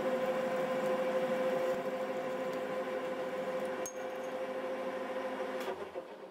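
Metal lathe running with a steady whine while a parting tool cuts into a spinning bar of annealed high-carbon spring steel, parting off a screwdriver-bit blank. There is a faint tick about four seconds in, and the sound dies away near the end.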